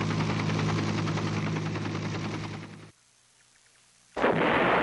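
Helicopters flying, a steady engine and rotor drone that cuts off abruptly about three seconds in. After a second's near silence, loud artillery fire begins near the end.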